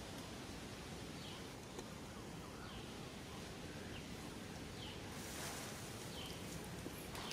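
Faint outdoor background noise with short high chirps repeating about once a second, and a brief hiss a little past halfway.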